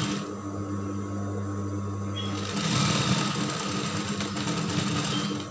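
Industrial sewing machine. Its motor hums steadily while the needle is stopped, then it stitches again from about two and a half seconds in until just before the end.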